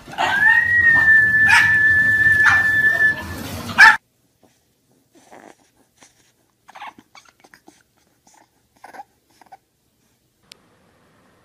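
A loud, high squeal, rising at first and then held steady for about three seconds over dog noises and a few knocks, cut off by a sharp thump about four seconds in. Then faint, scattered puppy whimpers.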